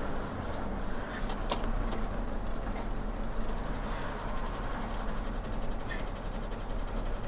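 Ford Cargo 2520 diesel truck heard from inside the cab while rolling: a steady low engine and road rumble under a dense, irregular clatter of cab and body rattles.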